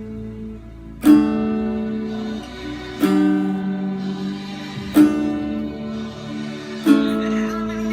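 Acoustic guitar strumming four chords about two seconds apart, each struck sharply and left to ring.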